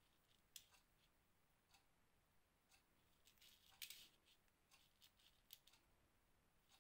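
Near silence with faint, scattered small clicks and ticks, bunched a little past the middle.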